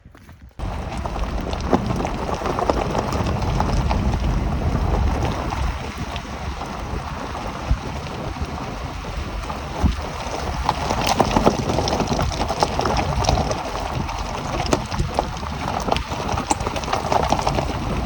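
Dacia Duster 4x4 driving through mud: a dense rumble of tyres, mud and wind buffeting the microphone, with scattered irregular knocks. It starts suddenly about half a second in.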